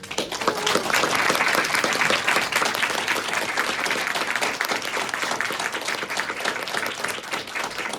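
Audience applauding: many hands clapping densely, starting as the last sung and guitar notes die away and carrying on steadily.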